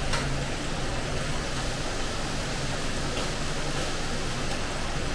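Steady rushing hiss with a low hum in a kitchen around a covered pot cooking on a gas stove, with a few faint ticks.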